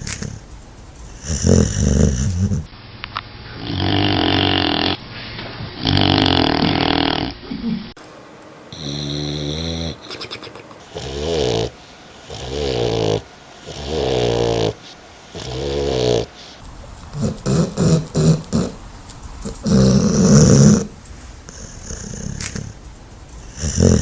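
Dogs snoring: one snore every one to two seconds, several with a buzzing, rattling pitch. The sound quality changes abruptly a few times where different snoring recordings are spliced together.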